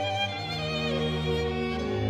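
Solo violin playing over a string orchestra, with cellos and double bass holding low notes underneath; about a second in, the violin slides down into a lower note.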